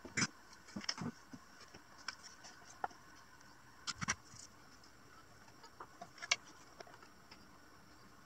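Scattered light clicks and knocks of LED strip pieces in aluminium channels and plywood sign parts being handled and set down on a board, a few of them sharper, the loudest right at the start and about four seconds in.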